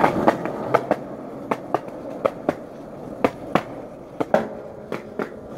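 Skateboard rolling over pavement: a steady rolling rumble broken by sharp clacks at irregular intervals, roughly every half second.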